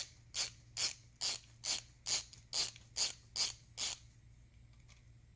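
A hand ratchet clicking in an even rhythm, about ten clicks in four seconds, as it is worked back and forth snugging down small camshaft bolts on a Subaru EJ25 cylinder head to about 10 to 12 foot-pounds. The clicking stops about four seconds in.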